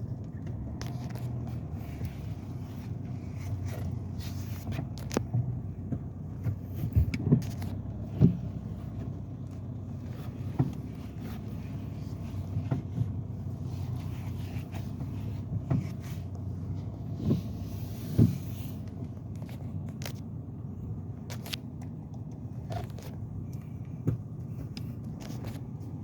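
2007 BMW M Sport car running steadily, with irregular sharp clacks every second or few: the clacking noise the owner treats as a problem.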